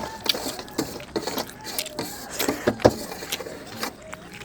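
Close-up eating sounds: chewing and food being handled on a plate, heard as short sharp clicks and crunches at uneven intervals. The loudest comes a little under three seconds in.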